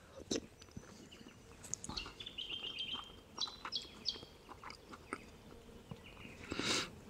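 Small birds chirping, with a quick trill of repeated notes about two seconds in. Close by are soft clicks of a spoon and chewing, and a short breathy rustle near the end.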